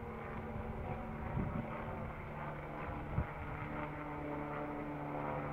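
NYPD police helicopter overhead, a steady drone with several held tones. One sharp knock comes about three seconds in.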